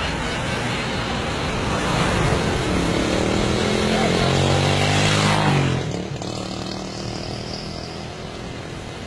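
Street traffic noise with a motor vehicle engine running close by, growing louder for a few seconds and then dropping away suddenly about six seconds in, leaving quieter traffic.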